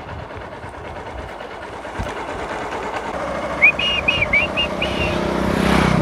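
A motorcycle coming up from behind, its engine noise growing louder. Its horn sounds a quick run of about six short beeps a little past halfway.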